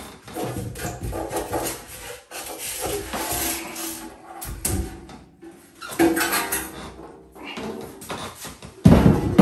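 The cut-open sheet casing of a central-heating magnetic filter box being prised apart and lifted off, its panels scraping and rattling against each other and the insulation beneath. A heavy thump near the end is the loudest sound.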